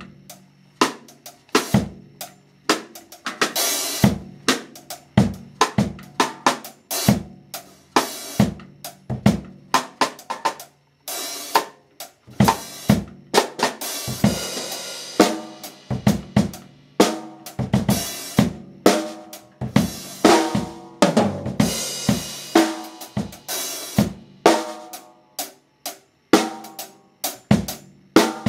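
Drum kit being played: rapid snare and bass drum hits mixed with cymbal crashes that ring on several times.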